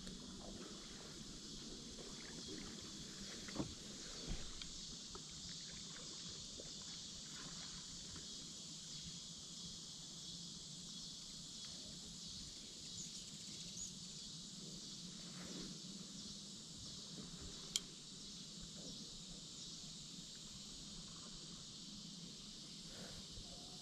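Small paddle boat being paddled on calm water: faint paddle strokes and water sounds over a steady high hiss, with a couple of light knocks about three and a half seconds in and a sharp click near the end.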